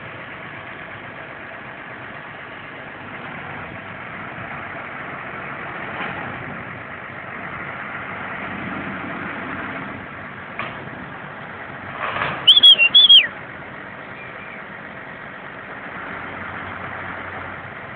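The engine of a red crane truck runs steadily. About twelve seconds in, a quick series of short, sharp, high-pitched squeals is the loudest sound.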